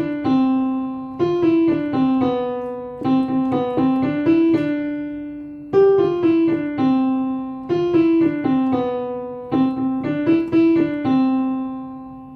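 Solo piano playing the children's song melody as an instrumental interlude between verses: short phrases of struck notes, each fading away, the phrase played twice.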